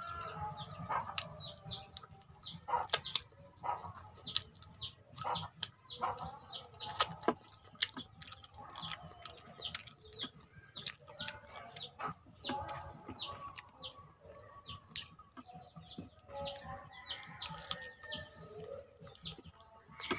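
Mouth-noise eating sounds, sharp smacks and clicks of someone chewing and sucking on adobo chicken feet with rice, over a steady background of birds chirping in short, repeated downward chirps and chickens clucking.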